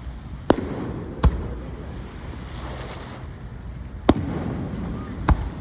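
Fireworks shells bursting overhead: four sharp bangs, two about a second in and two more near the end, each trailed by a brief rumbling echo.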